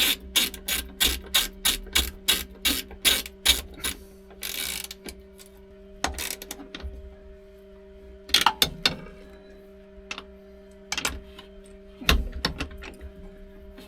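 Hand socket ratchet clicking in a quick run of about four clicks a second, then in shorter bursts with pauses between, as nuts are run down to bolt the brake booster to the pedal bracket. A steady low hum sounds underneath.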